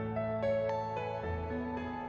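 Slow, soft background music: sustained keyboard-like notes over held bass notes, changing every half second or so.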